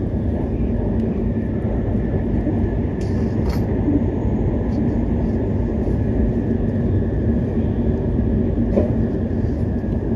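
Steady running noise of a Hokuriku Shinkansen train in motion, heard inside the passenger cabin: an even low rumble with a constant hum and a few faint clicks.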